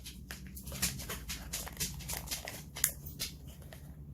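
Plastic frosting pouch being handled and worked at while someone tries to open it: a string of irregular small crinkles and clicks.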